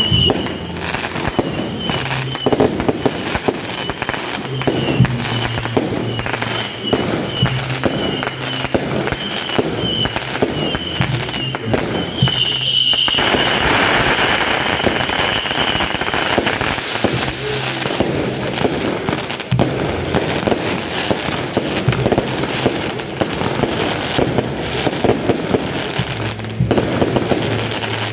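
Fireworks going off in a rapid, continuous string of cracks and bangs. A high steady whistle runs through the first half and grows stronger near the middle, where a hissing rush sets in and carries on under the cracking.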